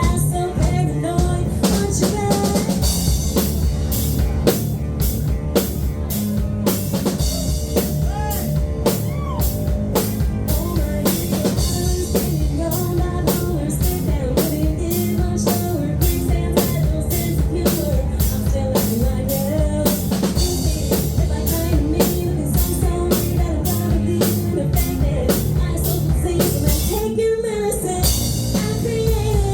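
Music with a full drum kit, snare and bass drum, keeping a steady, driving beat over pitched instruments, with a brief break in the beat near the end.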